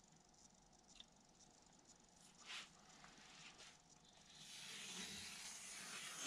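Faint scraping of a hobby knife drawn through balsa wood along a steel straightedge: a soft tick about a second in, a short scrape midway, then a longer, steadier scrape that builds over the last two seconds.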